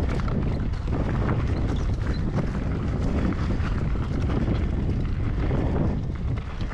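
Wind buffeting the microphone of a camera on a moving e-mountain bike: a steady low rumble, with frequent small knocks and rattles from the bike on the track.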